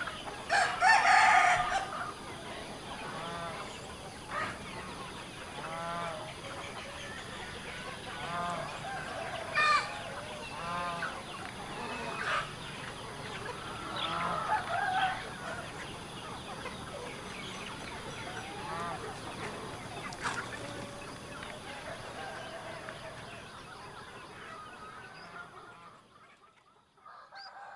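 Chickens clucking and calling over and over, with a rooster crowing about a second in as the loudest call, over a steady high hiss. It all fades out near the end.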